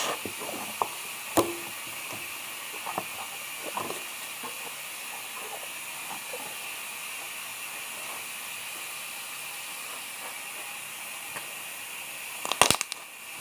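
Slime being handled and squished by hand, with soft sticky clicks and pops in the first few seconds, then mostly a steady background hiss. A few sharp clicks come near the end.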